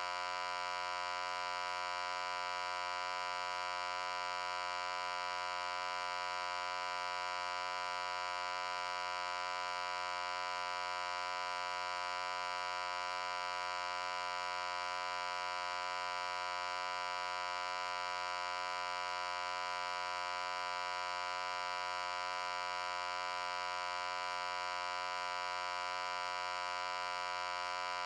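A steady, buzzy hum with many overtones, unchanging in pitch and level.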